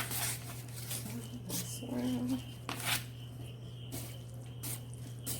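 Cooked instant noodles being mixed with seasoning flakes in a bowl: scattered soft wet squishes and light utensil clicks, over a steady low hum.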